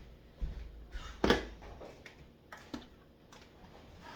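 A series of irregular knocks and clatters from household items being handled during kitchen cleaning. The loudest, sharpest knock comes about a second in.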